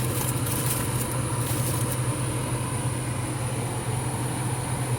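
Steady low motor hum with a faint high whine above it, unchanging throughout.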